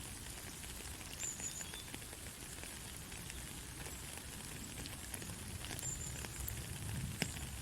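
Steady rain: an even hiss of falling rain with many scattered drop ticks close by, one sharper tick near the end.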